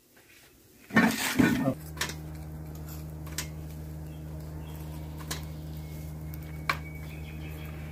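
A clatter of metal pots and skewers about a second in, then a steady low hum with a few sharp metallic clinks as grilled kebab meat is pushed off steel skewers into a stainless steel pot.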